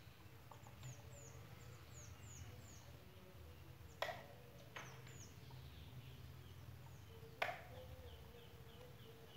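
Bonsai pruning scissors snipping twigs: two sharp snips about three and a half seconds apart, with a fainter click between them. A bird chirps a quick run of short high notes in the background.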